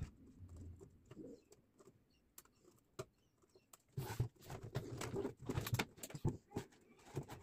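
Handling noise from an old DVD player's metal casing and its loose speaker wires: scattered light clicks, then a spell of knocks and rubbing about four seconds in.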